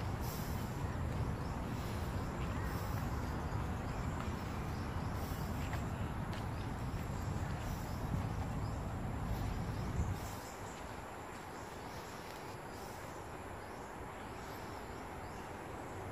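Outdoor park ambience: a low rumble, like wind on the microphone, for about the first ten seconds, then dropping away suddenly, over a steady hiss with faint high chirps.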